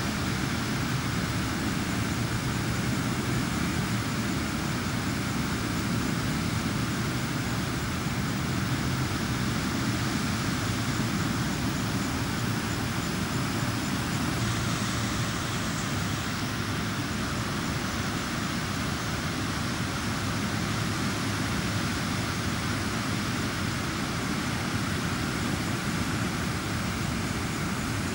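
Floodwater rushing steadily down a swollen creek, a constant even noise with no breaks.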